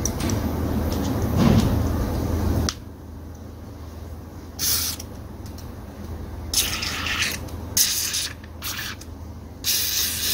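Aerosol carburetor cleaner sprayed through a straw nozzle into a chainsaw carburetor's fine passages: about five short hisses in the second half. Before them, a steady rushing noise stops abruptly a little under three seconds in.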